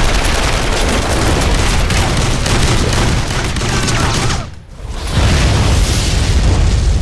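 Sustained automatic gunfire, a film sound effect of rapid shots with heavy booms. It comes in two long bursts with a short break about four and a half seconds in.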